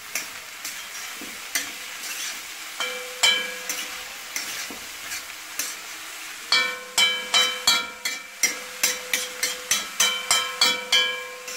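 A metal spoon stirring vegetables in a metal kadai over a faint frying sizzle. The spoon knocks against the pan, which rings briefly with each knock: scattered knocks at first, then a quick run of about a dozen, roughly three a second, from about halfway through.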